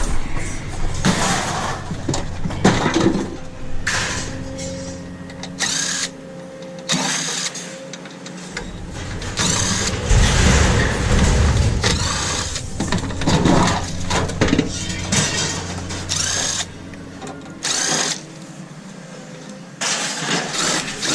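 Repeated clanks, knocks and scraping of scrap metal parts being handled and pulled apart, with a heavier low rumble about halfway through.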